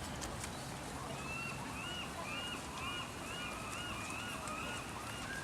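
A quick series of short honking calls, about two to three a second, starting about a second in and running until near the end, over a steady hiss.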